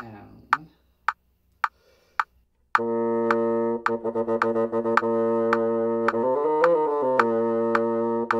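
A metronome clicks at 108 beats a minute, four clicks on its own. Then a bassoon comes in on low B-flat, holding it and repeating the note, with a quick run up a five-note B-flat major scale fragment and back down near the end. The metronome keeps clicking under the bassoon.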